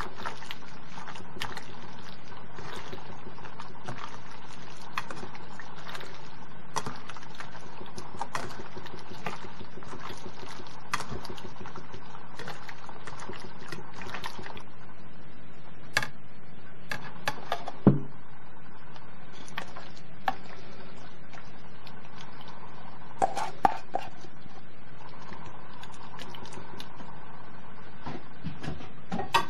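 Hands kneading and squeezing sliced pork in a wet marinade in a metal bowl: a continuous wet squelching with small clicks of fingers against the bowl. About halfway through the squelching thins out, and there is a single loud knock a few seconds later, over a steady faint hum.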